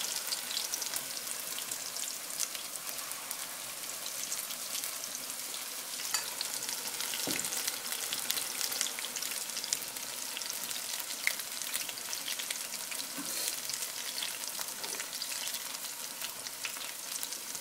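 Spinach and potato pakoras deep-frying in hot oil: a steady sizzle with fine crackling throughout.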